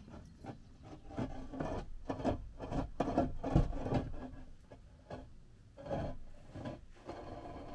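A heavy concrete paving slab is dragged across a van's load floor, making rough grating scrapes and knocks. The loudest is a heavy knock about three and a half seconds in, and another scrape comes around six seconds in.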